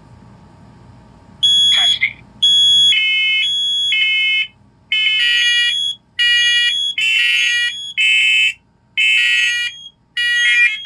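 Interconnected First Alert smoke alarms sounding their test alarm together: loud, high-pitched beeps at several pitches overlapping in uneven on-off pulses, starting about a second and a half in after a faint low hum.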